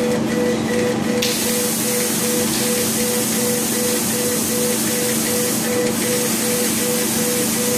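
A 60-watt CO2 laser engraving machine running while it engraves stone: a steady rushing hiss over a constant low hum, with a mid-pitched whine that pulses about three times a second. The hiss turns brighter about a second in.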